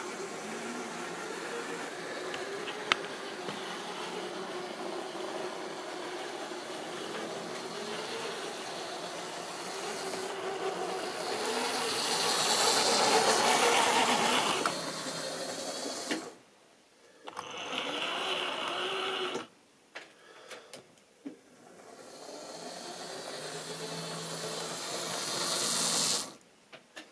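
Model railway train running on the layout: the locomotive's small electric motor whirring and the wheels rattling over the track. It is loudest about halfway through as the coaches pass close, cuts out briefly twice with a few clicks, builds again, and stops suddenly near the end.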